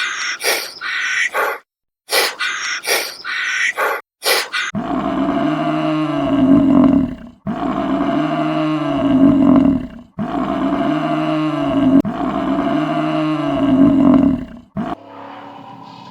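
A run of short, sharp animal calls. Then a large animal roars four times, each roar long and alike and about two and a half seconds, stopping near the end.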